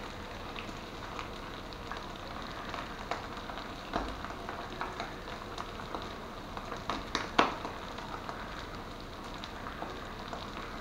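Pan of sausage, ground meat and tomato sauce sizzling steadily over a gas burner. A few light clicks and taps stand out, the loudest about seven and a half seconds in.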